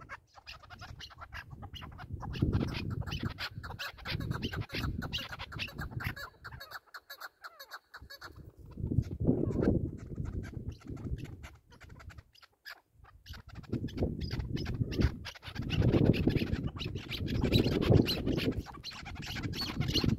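Chukar partridge calling in a run of short, rapid clucks. Wind buffets the microphone in gusts.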